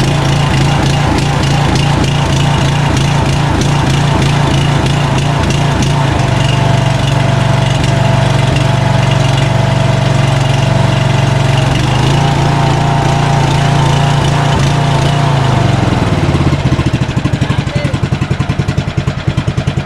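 Riding lawn mower engine running steadily and loudly. About 16 seconds in its pitch drops and it settles into a slower, evenly pulsing beat.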